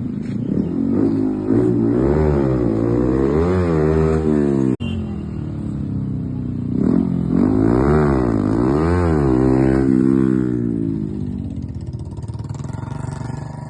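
Motorcycle engine revving, its pitch climbing and dropping repeatedly in two spells, with a brief sudden break about five seconds in; the sound fades near the end.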